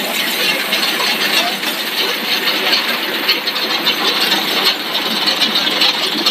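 Core-filled snack extrusion line running: a steady, dense mechanical noise with a fast, fine rattle, from the extruder and its drives.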